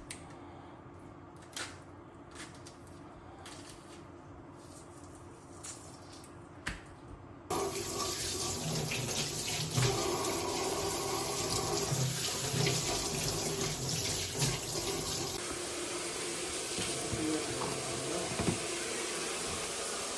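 A few light knocks and clicks of handling, then about seven seconds in a water tap is turned on and runs steadily and loudly to the end.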